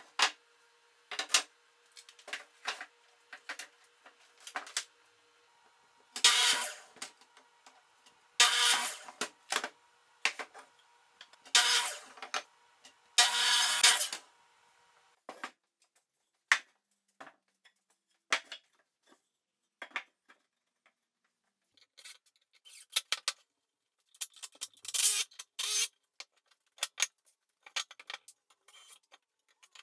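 Workshop handling sounds: scattered clicks and knocks of tools and parts, with several short rasping bursts of about half a second to a second each.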